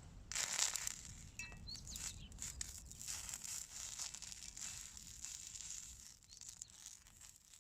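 Faint rustling and crinkling with a few light clicks and clinks, as of things being handled by hand.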